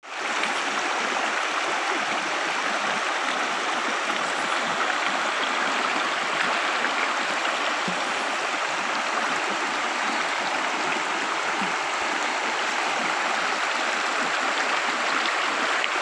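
Shallow rocky river flowing over and around boulders, a steady rushing and babbling of water over small rapids.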